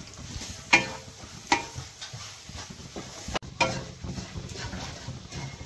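Wooden spatula stirring and scraping semolina roasting in ghee in a non-stick kadhai: a few sharp scrapes about a second apart over a light sizzle.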